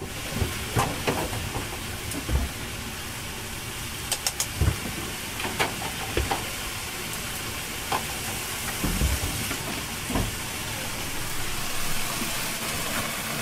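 Ship's galley kitchen noise: a steady hiss with scattered clinks, clatter and knocks of metal utensils, pans and dishes.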